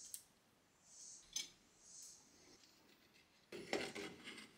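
Faint handling sounds: a few light clicks, then an animal skull set down and shifted on a display-cabinet shelf, a short scraping clatter about three and a half seconds in that is the loudest part.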